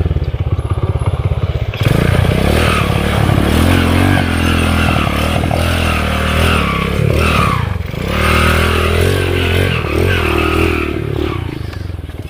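Underbone motorcycle's small engine running at a low throb, then revving hard under load from about two seconds in, its pitch rising and falling repeatedly as it labours through a deep river crossing, with some clatter.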